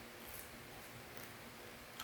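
Faint chewing of a crunchy macaroni snack: a few soft mouth clicks over a low steady hum, with no loud crunches.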